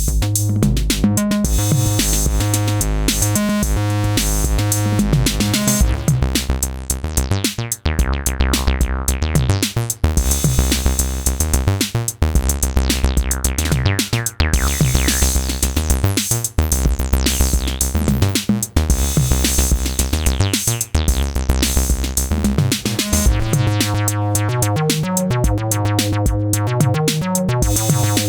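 Acid bass line played on an Elektron groovebox over a drum machine beat, in a steady repeating pattern with the bass filter sweeping. The bass grows deeper about six seconds in and the pattern changes again near the end.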